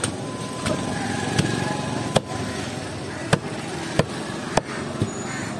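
Knife blows chopping through a large fish on a wooden block: a series of sharp knocks, irregularly spaced about every half second to a second, over steady street traffic noise.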